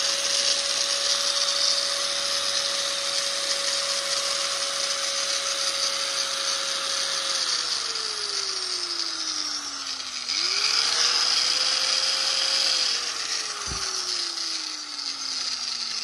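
Hitachi G10SH5 100 V, 720 W angle grinder running free with no load at a steady whine. It is switched off about seven seconds in and its pitch falls as it coasts down, then it is switched on again about ten seconds in, runs back up to speed, and is switched off once more, winding down near the end.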